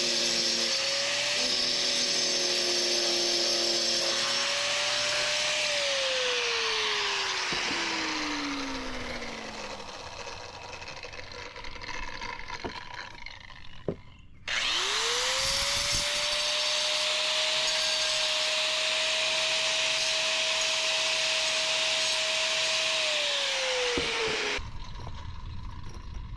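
DeWalt angle grinder cutting a paver, run twice. The first cut ends about six seconds in and the motor winds down with a falling whine. The grinder starts again about halfway through, runs steadily for about eight seconds, then winds down and stops near the end.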